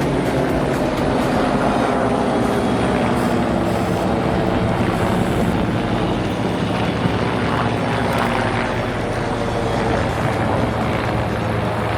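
Helicopter running steadily, its rotor and engine giving a low, even drone.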